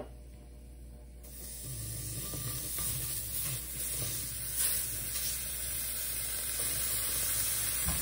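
Butter sizzling in a hot stainless-steel wok, starting suddenly about a second in as it hits the pan and growing louder. A utensil scrapes it around the pan with a few faint clicks.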